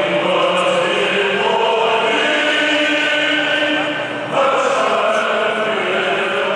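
Stadium football crowd singing together in long held notes. It dips briefly about four seconds in, then swells again.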